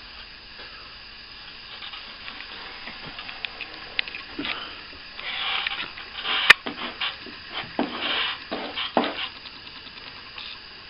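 Plastering work: intermittent scraping strokes of a hand tool on plaster, with a single sharp tap about halfway through.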